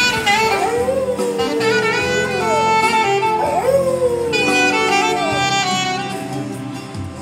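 A dog howling in long wavering, sliding wails along with a saxophone melody over backing music. The howling dies away about five seconds in while the music plays on.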